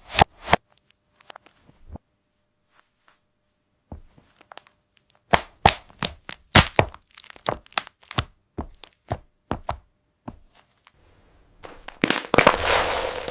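Hard candy-shelled chocolate cracking and crunching as it is crushed: a few sharp cracks at the start, a near-silent gap of a few seconds, then a run of separate cracks about one or two a second, and a dense, continuous crunching near the end.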